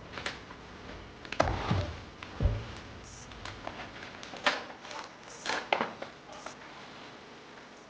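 A small cardboard box being opened and its contents handled: scattered light clicks, taps and rustles at irregular intervals.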